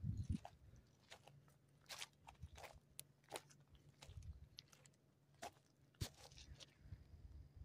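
Near silence, with faint scattered clicks and crunches and a faint steady low hum underneath.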